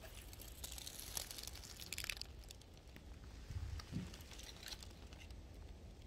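Faint crinkling rustle of dry leaves and reed stalks being disturbed, in scattered patches, with a dull low bump a little past halfway.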